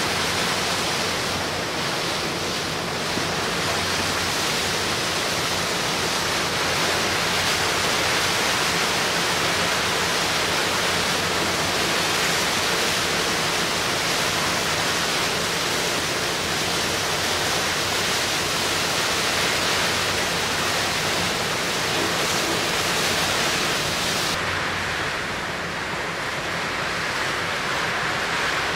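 Steady rush of wind and sea water around the passenger/cargo ship Yuri Maru under way, with a faint low engine hum beneath. Near the end the highest part of the hiss falls away.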